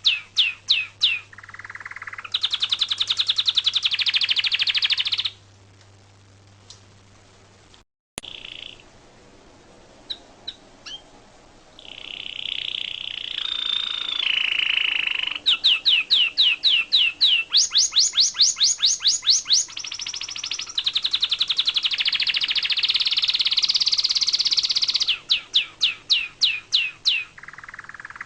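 Songbird singing in runs of rapid, sharp repeated chirps and trills, with short pauses between runs and an abrupt break about eight seconds in.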